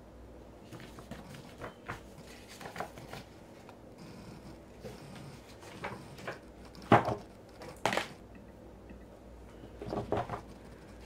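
Scattered light clicks and knocks from small objects being handled at a desk. The two loudest come about seven and eight seconds in, and a short cluster follows near the end.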